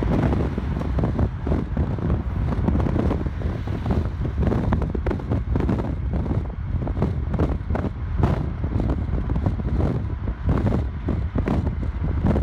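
Wind buffeting the phone's microphone over the rumble of a moving vehicle, with irregular gusts throughout.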